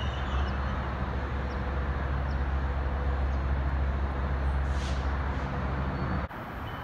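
Metrolink commuter train's diesel locomotive running, a steady low rumble with a faint hum, which drops away abruptly near the end.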